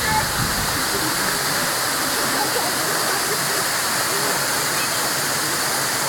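Waterfall: water pouring down a rock face and splashing onto rock, a steady, even rush.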